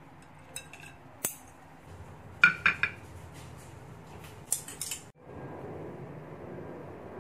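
Wire plate-lifting clip clinking against a ceramic plate as a plate of steamed egg dumplings is lifted out: a few sharp clinks, the loudest a cluster of three about two and a half seconds in, and more near the middle. After that comes a steady low hiss.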